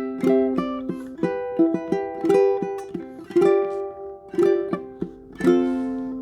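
Tenor ukulele played as a melody of plucked notes and chords, each with a sharp attack and ringing on, about two to four a second.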